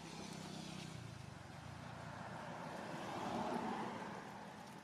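A motor vehicle passing: a low engine hum and rushing noise that swells to a peak about three and a half seconds in, then fades.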